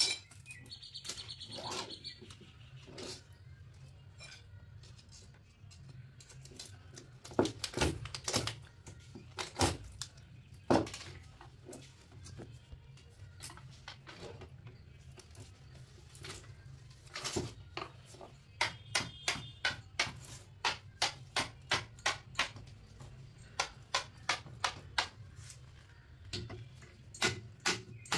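Hammer blows on a steel bar and chisel wedged in an AC compressor motor's laminated steel stator, sharp metallic knocks driving out the copper windings. The blows are scattered in the first half, then become a steady run of nearly two a second.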